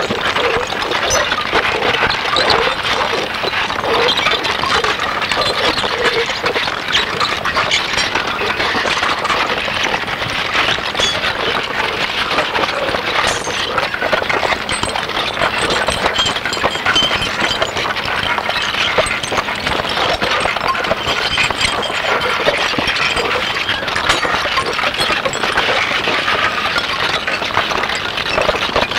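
Experimental harsh-noise / musique-concrète recording: a dense, continuous texture of crackling and scraping made of countless small clicks, holding a steady level throughout.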